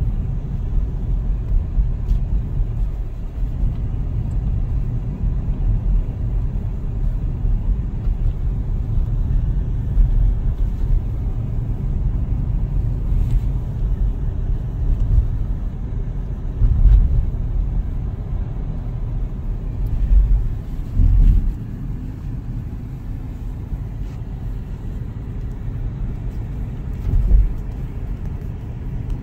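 Car driving along a road, heard from inside the cabin: a steady low rumble of tyres and engine, with a few short, louder low swells along the way.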